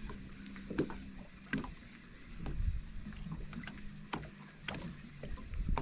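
Small water slaps knocking irregularly against a boat hull, with low wind rumble on the microphone. A low steady hum from the bow-mounted electric trolling motor fades out about a second in.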